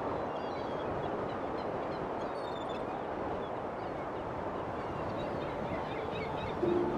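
Steady rushing wind ambience with faint, scattered bird chirps. Near the end a steady low tone comes in over it.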